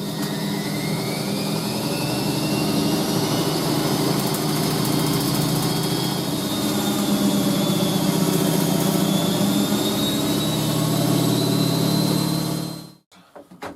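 A loud, steady electric motor running with a hum and a high whine, stopping abruptly about a second before the end, followed by a few light knocks.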